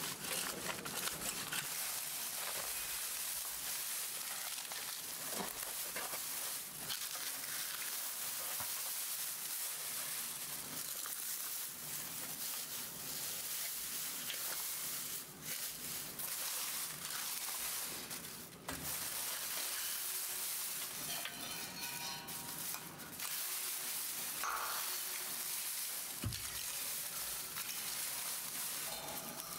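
Dry grass and straw crackling and rustling as it is pulled up and handled, over a steady hiss.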